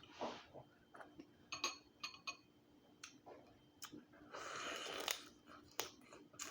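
Close-up eating sounds of someone working through boiled crab meat: soft wet chewing and mouth noises broken by scattered sharp clicks, with a rushing breath-like sound lasting about a second about four and a half seconds in.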